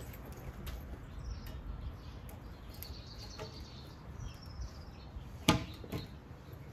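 Quiet outdoor background with a few faint bird chirps and light clicks, and one sharp knock a little over five seconds in as a wooden post is handled.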